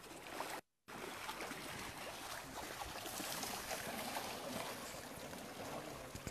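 Shallow river water running and splashing around wading elephants' legs, as a steady rushing noise. It drops out to silence for a moment just under a second in.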